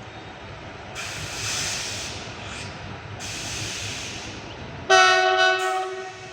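Freight locomotive approaching with a rushing hiss that rises about a second in, then sounding its horn once: a loud, steady blast of about a second and a half near the end.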